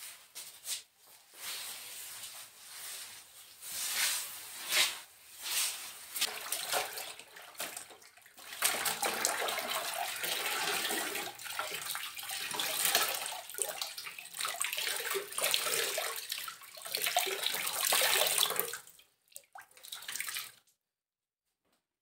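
Wet floor cloth being rinsed and wrung out over a bucket: water splashing and streaming into the bucket for about ten seconds, after a stretch of scattered wet swishes as the cloth is worked. The sound stops shortly before the end.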